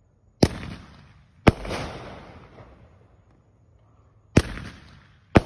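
Consumer aerial fireworks going off: four sharp bangs in two pairs, about a second apart within each pair and about three seconds between pairs. Each bang trails off over about a second.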